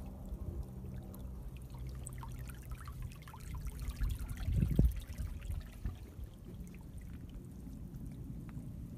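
Seawater trickling and flowing through a rocky tide-pool channel, with scattered small splashes. A brief louder low rumble swells about halfway through.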